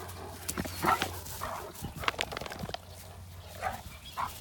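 Two Great Danes romping on grass, their paws thudding on the ground, with a few short dog huffs.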